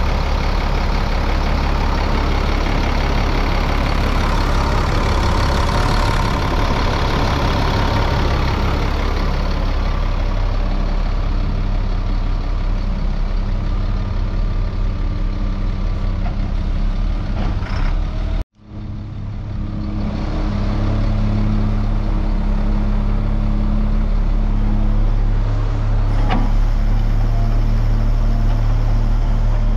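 2000 Chevrolet rollback truck's engine idling steadily, its low even hum unchanged throughout. The sound cuts out for an instant a little past halfway, then the idle carries on.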